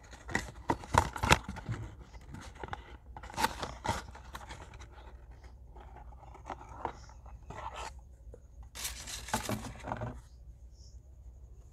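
Handling noise from a cardboard toothpaste carton and a plastic toothpaste tube: the tube is slid out of the box, with cardboard scraping and plastic sheeting crinkling in irregular bouts, loudest near the start and again near the end.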